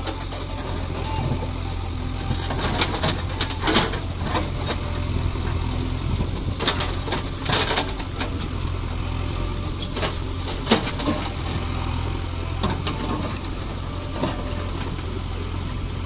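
JCB 3DX backhoe loader's diesel engine running steadily while the backhoe bucket digs into stony soil, with scattered scrapes and knocks of rock against the steel bucket, the sharpest about 4, 7 and 11 seconds in.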